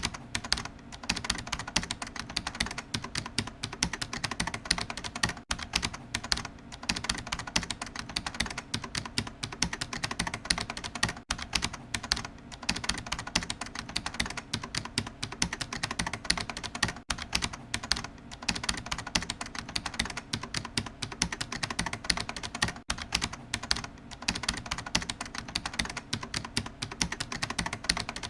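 Fast, continuous typing on a computer keyboard: a dense stream of key clicks at an even pace, broken by a short gap about every six seconds.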